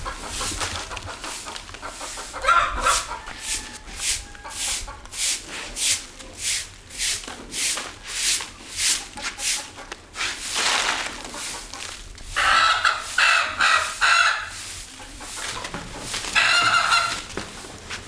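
A broom sweeping in steady, brisk strokes, about two a second, followed by a rooster crowing twice.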